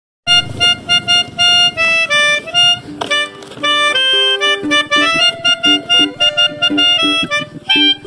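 Melodica blown through its mouthpiece tube, playing a fast basuri bus-horn tune of short, repeated notes. Partway through, the tune moves down to lower notes.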